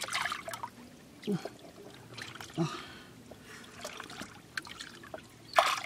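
Shallow water sloshing and trickling as hands grope through it among rocks, with a sharper splash near the end. A man gives a few short low murmurs in between.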